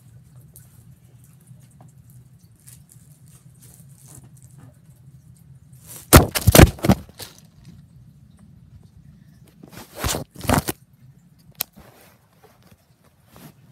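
A bagged loaf of bread thrown onto an iPad lying face up: a burst of loud thuds and plastic-bag crinkle about six seconds in, two more hits around ten seconds, and a single sharp tap a little later, over a low steady hum.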